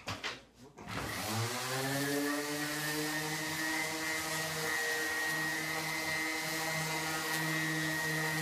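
A few light knocks, then a DeWalt random orbital sander is switched on about a second in: its motor rises in pitch up to speed and then runs steadily as it sands a wooden cart top with 120-grit paper.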